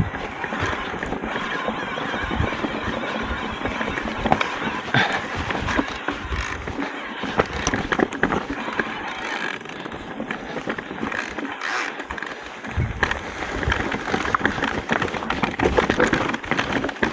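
Stones and gravel crunching, with many scattered clicks and knocks, as a mountain bike and its rider move over a rocky trail.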